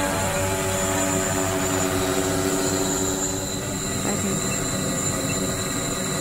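Multirotor drone hovering: a steady hum of spinning propellers with several pitched tones, which shift a little partway through.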